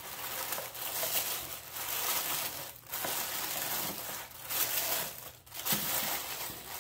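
Tissue paper rustling and crinkling as hands unfold it inside a cardboard box, with brief pauses twice.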